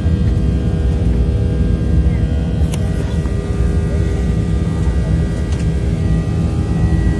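Jet airliner cabin noise while climbing after takeoff: the engines' steady low rumble with several steady tones above it. Two brief clicks about three seconds in.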